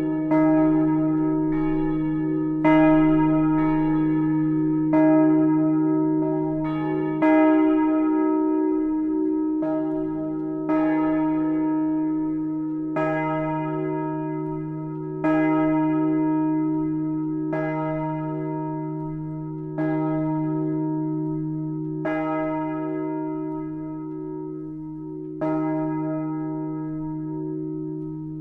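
Partial peal of the Gedächtniskirche's swinging church bells in Speyer: several bells struck by their clappers, each stroke ringing on over a steady hum. The strokes come about every one to one and a half seconds at first, then spread to two or three seconds apart and grow softer toward the end.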